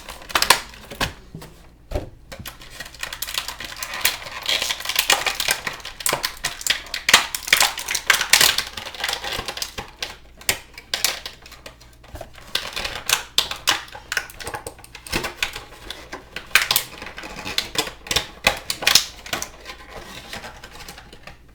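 Action-figure packaging being handled and pulled apart to free a He-Man figure: an irregular run of sharp clicks and crackling rustles.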